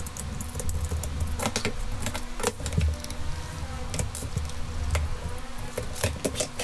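Scattered small clicks and light rattles of a screwdriver and small metal parts as fuse blocks, relays and wiring are unscrewed and lifted off a relay-box mounting plate, over a steady low hum.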